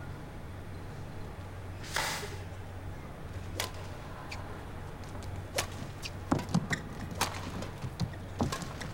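Badminton rally: rackets strike the shuttlecock with sharp cracks a second or two apart, coming faster in the second half, over the steady low hum of the arena. A short rushing burst about two seconds in.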